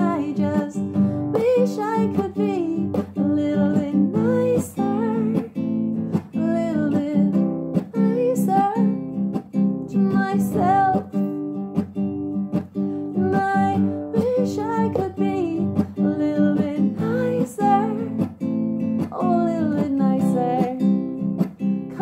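A woman singing a melody without words over a steadily strummed acoustic guitar.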